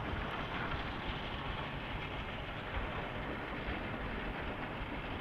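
Volvo FH13 540 8x4 plow truck working through snow: a steady rumble from its diesel engine mixed with a rushing noise as the plow blades push snow aside.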